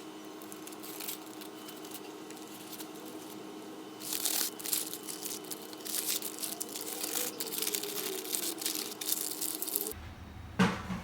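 Crinkling, rustling handling noise over a steady low hum, starting about four seconds in and lasting some six seconds; near the end the background changes and there is a single sharp knock.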